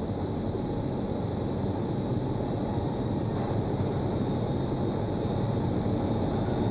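Steady hiss of underseal being sprayed onto a car body, over a low rumble of production-line machinery. The hiss stops suddenly at the very end.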